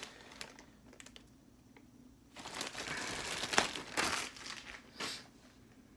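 Plastic mailing bag crinkling as it is handled and pulled off a long cardboard poster tube: soft rustles at first, then a loud stretch of crinkling from about two and a half seconds in, with a sharp snap in the middle and one more short rustle near the end.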